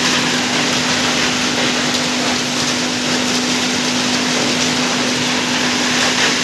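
Steady loud hiss of a bank of spray nozzles blowing a dense water mist over a conveyor, for dust suppression, with a steady machinery hum underneath.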